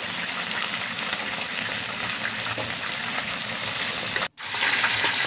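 Garlic-coated shrimp sizzling in hot oil in a frying pan as they are turned with a spatula: a steady sizzle with fine crackling, breaking off for a moment about four seconds in.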